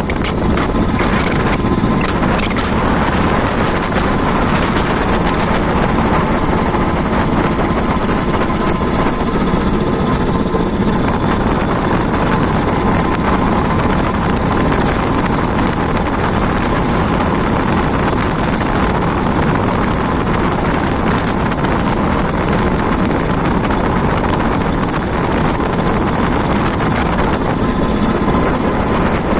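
A vehicle running steadily with loud rattling and vibration, as when driving over a rough offroad track.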